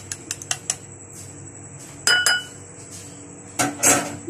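Metal spoon beating an egg in a ceramic bowl, tapping rapidly against the sides about five times a second and stopping about a second in. Then a single ringing clink on crockery, and a louder clatter of dishes near the end.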